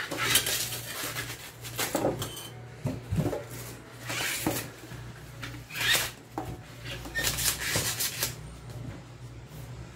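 Fresh taro stalks being peeled by hand: rustling and scraping as the fibrous skin is stripped off, in irregular strokes every second or two.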